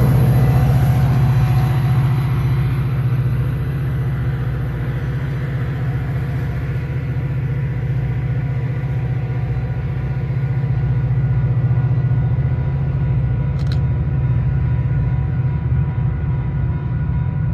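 Metra EMD F40PH diesel locomotive running steadily as the train pulls away, a strong low drone with faint steady tones above it that eases a little and then swells again.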